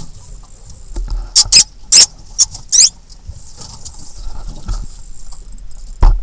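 Spinning reel's drag buzzing in about five short, loud spurts as a hooked hammerhead shark pulls line, over a steady hiss. A single low knock near the end.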